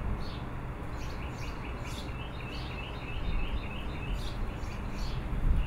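Small birds chirping, a quick run of short high notes at about four a second, over a steady low outdoor rumble.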